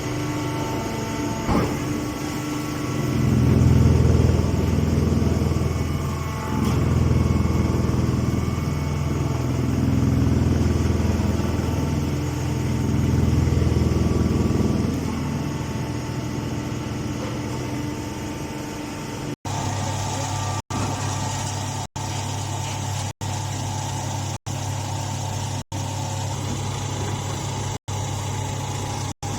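Grass baler machine running with a steady mechanical hum, its low drone swelling and easing several times in the first half. In the last third the sound settles into a flatter hum broken by brief drop-outs about every second and a quarter.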